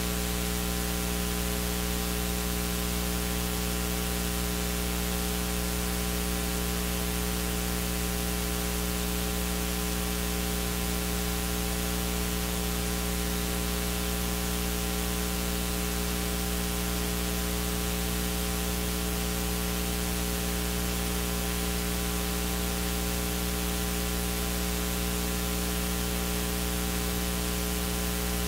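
Steady electrical mains hum with a hiss, unchanging throughout, from the sound system's audio feed; no other sound comes through.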